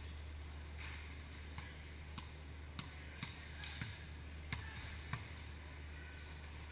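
Volleyballs being hit in play: a string of short, sharp slaps every half second or so, echoing in a large hall over a steady low hum.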